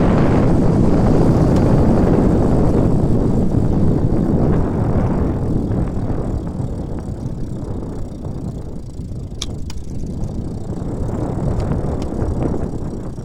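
Wind and rolling noise from an e-bike with a Magic Pie 5 Edge hub motor, easing off as the bike slows. About nine and a half seconds in come two sharp clicks close together: the knock this hub motor makes on accelerating and braking, which began after about 500 km even though the axle nuts and torque arms are tight.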